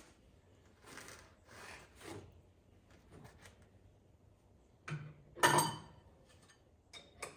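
Hand work on the welder's engine: parts and tools being handled and rubbed, with two sharp knocks, the second a loud, briefly ringing clank, a little past halfway and a couple of light clicks near the end.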